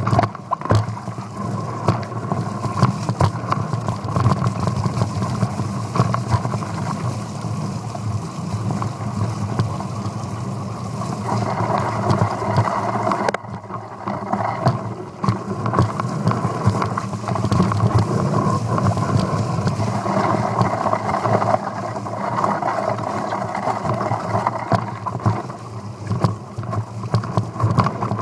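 Mountain bike descending a rough dirt trail, heard from a camera mounted on its handlebars: continuous rattling and knocking of the bike over bumps, over a steady low rumble.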